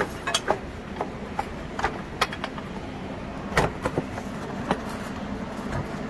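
Irregular clicks and knocks of a plastic engine shroud being handled and pressed into place on a Briggs & Stratton Intek engine, over a faint steady hum.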